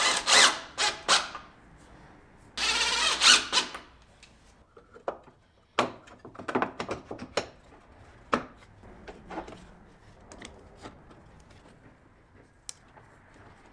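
Workshop handling noises: two bursts of rustling near the start, then scattered clicks and knocks that grow sparser.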